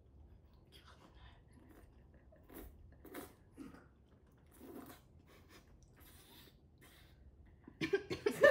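Noodles slurped and chewed close to a microphone: several short, quiet slurps and mouth sounds. About eight seconds in, a sudden fit of loud coughing.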